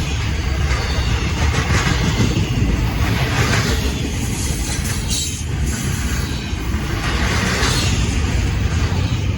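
Norfolk Southern freight train rolling past at close range: a steady, loud rumble of the cars on the rails with a rushing hiss that swells and fades every couple of seconds.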